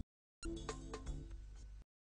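Soft background music with a few held notes. It starts after a brief dead silence and cuts off abruptly shortly before the end.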